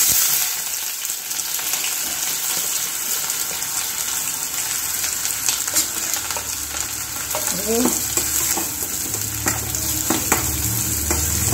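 Chopped onion hitting hot oil in a stainless steel kadai and sizzling, loudest just as it goes in. In the second half a metal spoon scrapes and clicks against the pan as the onion is stirred.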